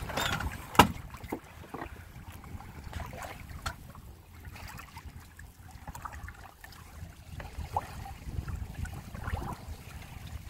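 Water lapping and trickling along the hulls of a small Windrider 17 trimaran under sail, with a low rumble underneath. A sharp knock comes a little under a second in, and a few lighter clicks follow.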